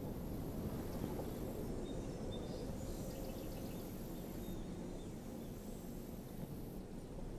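Steady low outdoor background noise in open countryside, with a few faint high chirps about two to three seconds in.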